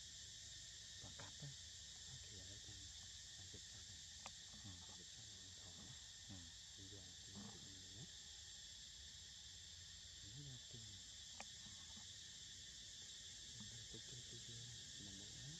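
Faint, steady high drone of forest insects, with snatches of distant voices now and then.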